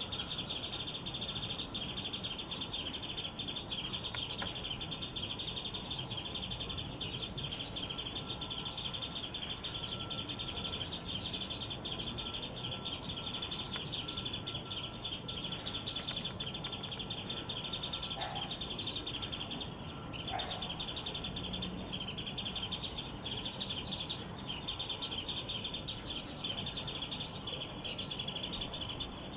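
Japanese white-eye calling intensely in a rapid, nearly unbroken stream of high chattering notes, breaking off briefly a couple of times past the middle. The bird is agitated just after a fierce fight with another white-eye, which the observer takes for a challenger that lost to the paired male.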